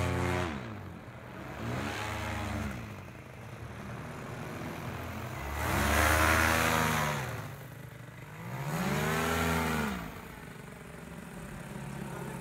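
Minari two-stroke paramotor engine and propeller running overhead. Its pitch and loudness rise and fall in about three swells, the loudest about halfway through, as the machine swings round in the aerobatic manoeuvres.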